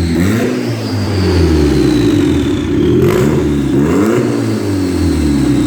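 Turbocharged Honda Civic four-cylinder engine revving up and down several times under light throttle. The engine is still untuned and runs not the greatest.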